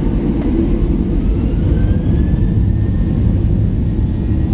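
Boeing 737-800's CFM56 jet engines running, heard as a steady loud rumble inside the passenger cabin while the airliner rolls along the ground, with a faint whine that rises in pitch about a second and a half in.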